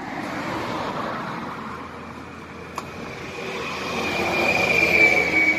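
A motor vehicle passing: a rising rumble that is loudest about five seconds in, with a high whine that drops slightly in pitch as it goes by. A single sharp click just under three seconds in.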